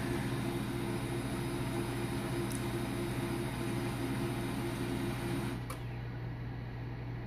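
HP LaserJet P2015dn laser printer's internal motor running steadily, then stopping with a click about five and a half seconds in. A lower hum carries on after it.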